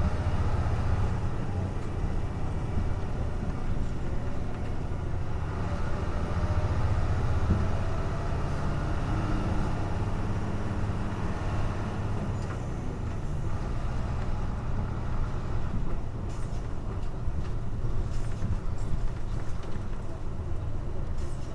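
Hino Blue Ribbon city bus engine running while the bus drives, heard from inside the cabin: a steady low drone that swells and eases a little. A few light clicks come near the end.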